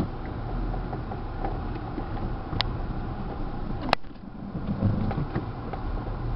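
Car cabin noise while driving over a rough dirt road: a steady low rumble with scattered rattles and sharp clicks, the loudest click about four seconds in.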